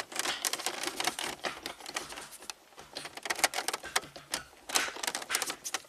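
Gear shifter of a 5-speed manual being rocked and moved through the gears, a run of irregular clicks and rattles. The loose spot in the shifter remains even with new shifter bushings, which the mechanic suspects comes from another worn set of bushings.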